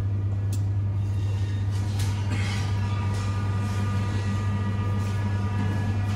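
A steady low machine hum with faint higher tones above it, unchanging throughout, with a few faint clicks.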